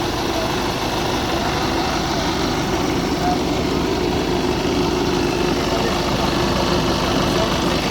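Tractor diesel engines running steadily, with a fast, even firing beat.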